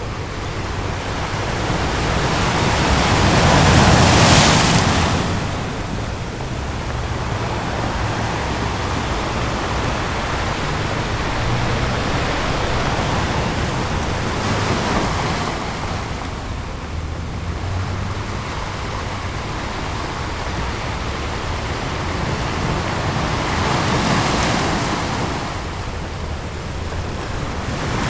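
Ocean waves breaking on a beach, a steady wash of surf that swells and ebbs, with the biggest wave surging about four seconds in and another coming near the end.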